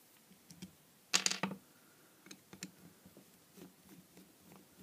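Small screws being undone with a screwdriver from the plastic front plate of an air pump: light clicks and scrapes, with one louder clatter about a second in.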